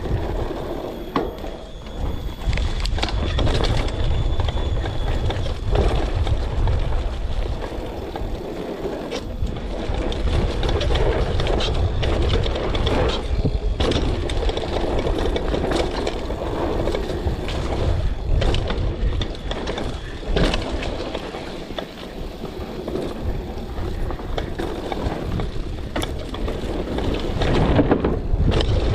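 Mountain bike descending a wet dirt trail, heard from a rider-mounted camera: steady low wind rumble on the microphone, tyres on the dirt, and the bike rattling and knocking over bumps.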